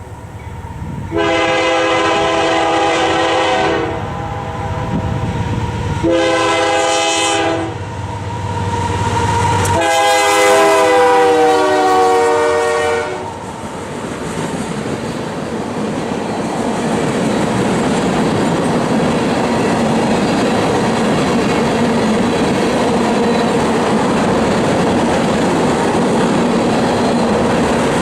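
Air horn of a CP AC44CW diesel locomotive leading a freight train, sounding three blasts (long, short, long), the last dipping slightly in pitch as it passes. Then the steady noise of the train's cars rolling by on the rails.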